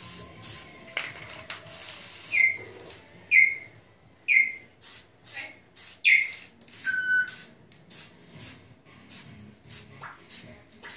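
Aerosol spray-paint can sprayed in short bursts of hiss. Several short high chirps that fall in pitch are the loudest sounds, about once a second from two to six seconds in.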